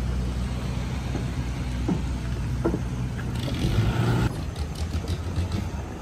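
A motor engine running with a low steady rumble that thins out after about two seconds, then a louder rush of noise for about a second, followed by scattered clicks.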